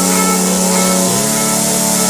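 Two-stroke chainsaw engine running at high revs, its pitch dipping sharply and recovering about a second in as it loads up in the cut.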